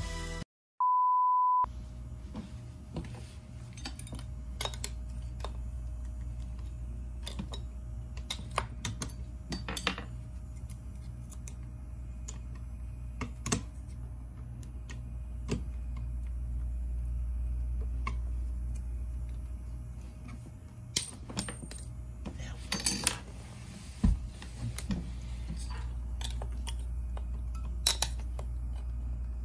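A steady electronic beep lasting about a second, then the steady low hum of a Creality Ender 3D printer under scattered metallic clicks and taps, as a metal scraper pries a printed part off the printer bed; the taps bunch up in the second half.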